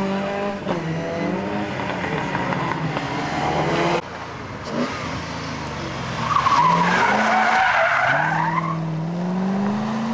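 A Fiat 124 Abarth rally car's engine runs as the car pulls away, its pitch rising and falling with the throttle. Then a second rally car's tyres squeal for about two and a half seconds as it slides through a bend, and its engine revs climb steadily as it accelerates away.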